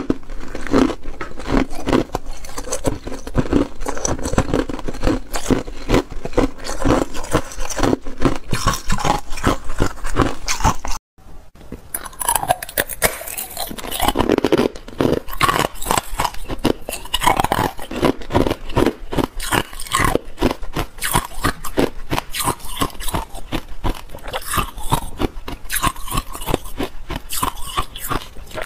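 Ice being bitten and crunched between the teeth close to the microphone, a dense run of sharp crunches and chewing. About eleven seconds in it cuts out for a moment, then resumes with someone biting pieces of purple-coloured ice.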